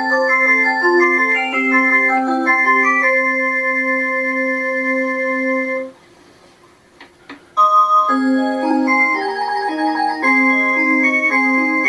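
Musical mantel clock playing an electronic chime tune of clear, pure notes. The tune stops about six seconds in; after a short pause with a couple of soft clicks, as a hand works the clock's button, a new tune starts.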